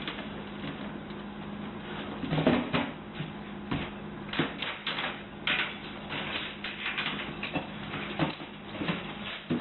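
Irregular knocks, taps and rustles over a steady low hum.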